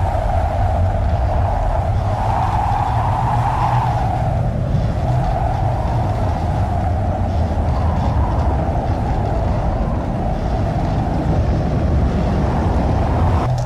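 Tornado wind buffeting a surveillance camera's microphone: a loud, steady rush, with a wavering howl over a deep rumble.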